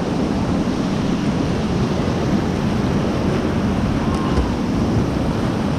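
Steady rush of white-water river rapids, with wind buffeting the microphone.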